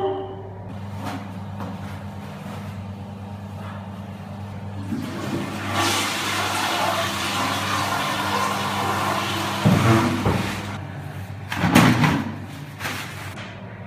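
Toilet flushing: a rushing of water that starts about five seconds in and lasts about five seconds. A knock sounds at the start, two louder thumps come near the end, and a steady low hum runs underneath.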